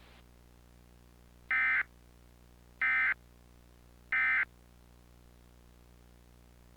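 Emergency Alert System end-of-message signal: three short, identical screeching digital data bursts (the SAME "NNNN" code) about a second and a half apart, closing the tornado warning broadcast.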